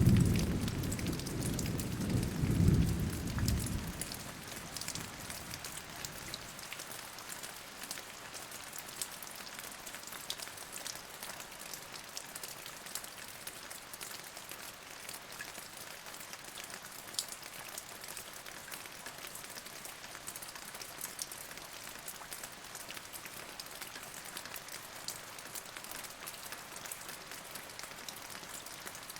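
Steady rain with scattered individual drops ticking. A low roll of thunder rumbles in the first few seconds, swells again about three seconds in, then dies away.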